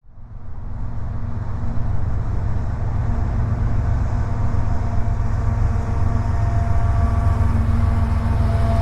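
Diesel-electric freight locomotives approaching on the head end of an empty coal train, a low engine rumble growing slightly louder, with faint high thin tones coming in near the end.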